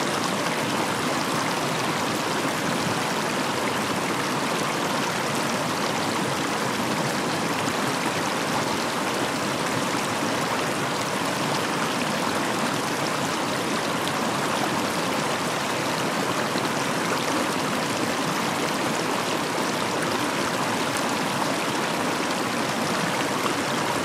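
Shallow stream running over rocks and small riffles: a steady babble of water with no change.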